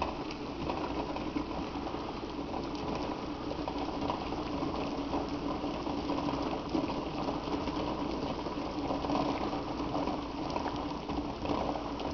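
A pot of water with eggs in it at a hard rolling boil: steady bubbling and churning.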